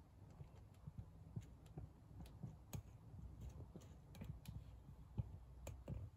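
Near silence: low room tone with faint, irregular clicks and ticks scattered throughout.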